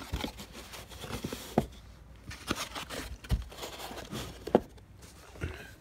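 Soundbar packaging being handled: a molded packing insert picked up and moved about on carpet, with light rustling and a few sharp knocks.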